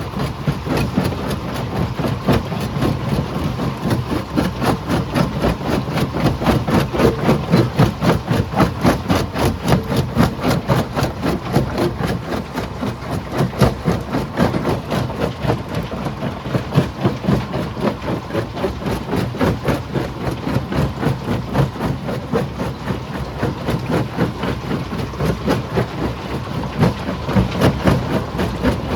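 Stone crusher machinery running, with a rapid, continuous rattle and clatter over a steady heavy engine drone.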